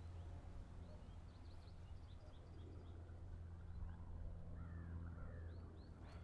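Faint rural outdoor ambience: scattered short bird chirps and a few calls over a low steady hum.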